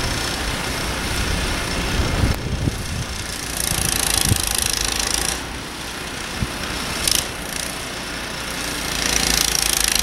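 Ariens Deluxe 30 snow blower's 306cc engine running while clearing snow; its sound shifts abruptly a few times.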